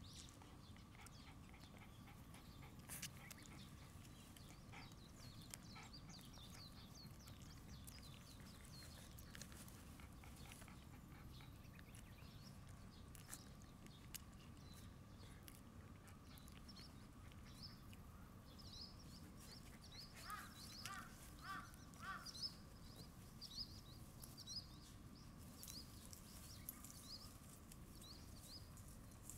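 Faint outdoor ambience with small birds chirping in short repeated notes, most often in the second half, and a brief run of louder pitched calls about twenty seconds in. A faint steady high hum runs underneath.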